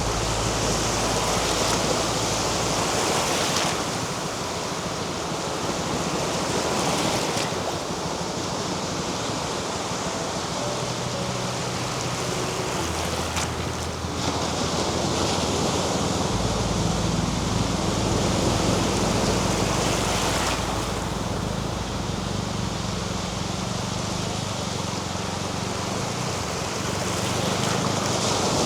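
Sea waves washing onto a beach as a steady rush of surf, its texture shifting abruptly a few times, with a faint low hum underneath.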